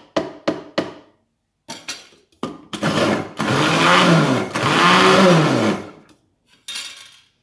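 A small electric food processor chops fried eggplant skins with onion, garlic and parsley toward a creamy paste. It runs in two pulses, its whir rising and then falling each time. First come a few short knocks of the wooden spoon and lid on the plastic bowl.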